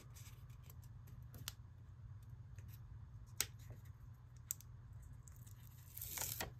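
Sticker backing paper being peeled off by hand: faint paper rustling with a few sharp ticks, and a louder crinkle of paper near the end.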